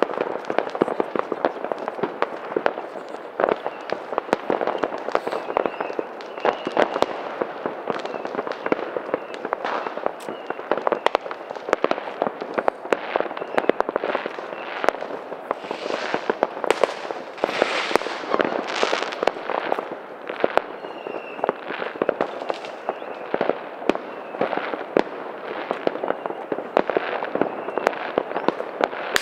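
New Year's fireworks: a dense, unbroken run of bangs and crackling, with a few brief high whistles and a louder patch of hissing crackle past the middle.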